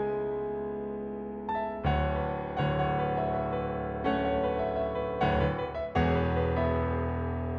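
Garritan CFX sampled Yamaha CFX concert grand piano playing a slow, sustained passage. A chord is struck about every second, and each one rings on and fades under the pedal.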